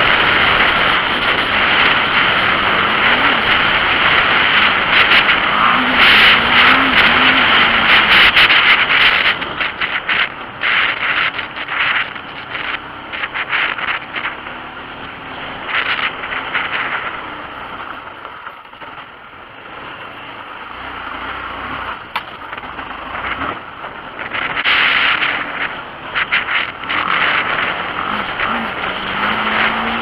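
Adventure motorcycle ridden on a dirt trail, heard through heavy wind buffeting on the microphone. The engine rises and falls in pitch several times with the throttle, and everything drops quieter for a few seconds past the middle.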